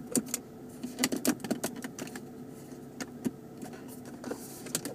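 Small plastic clicks and knocks from the centre-console cup holder cover being flipped and handled, with a quick run of them about a second in. A faint steady hum runs underneath.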